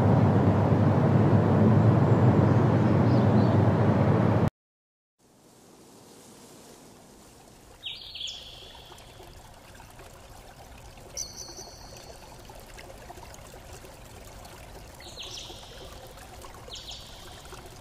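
Wind rushing over the microphone, loud and low, which cuts off about four and a half seconds in. A much quieter open-air hush follows, broken by four or five short, high bird calls.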